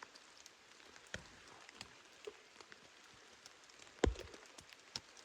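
Rain pattering on the fabric of a teepee shelter: a faint steady hiss with scattered sharp drop ticks. A single louder thump comes about four seconds in.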